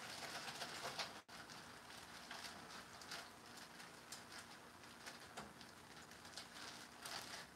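Faint crinkling of a plastic bag of broccoli being shaken and squeezed out, with many small ticks and patters as the florets drop into a saucepan.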